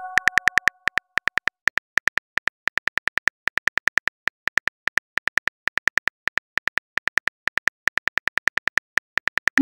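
Phone keyboard typing clicks: a quick run of sharp key taps, about six to eight a second with brief pauses, as a message is typed out. A chime left over from a message alert dies away at the start.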